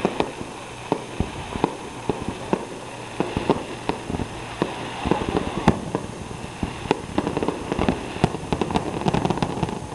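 Aerial fireworks display: a string of bangs and crackles from shells bursting at irregular intervals, coming faster and closer together over the last few seconds.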